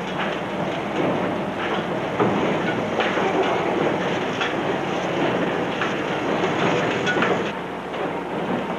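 Factory machinery running, a dense steady clatter with many small knocks and clanks.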